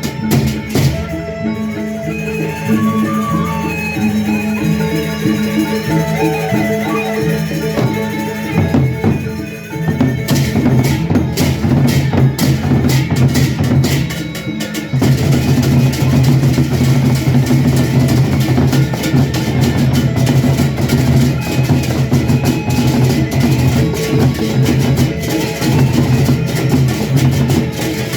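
Instrumental ensemble music led by drums and percussion over sustained pitched tones, the drumming becoming denser and louder about ten seconds in.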